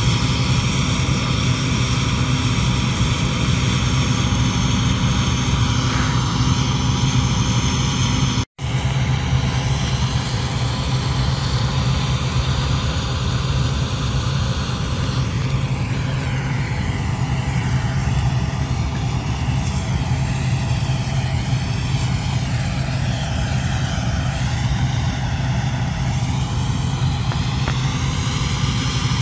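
Bizon Rekord combine harvester running steadily, a constant loud engine drone. The sound cuts out for an instant about eight seconds in.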